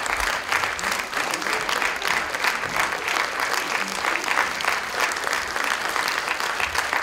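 Theatre audience applauding steadily, many hands clapping at once, at the curtain call.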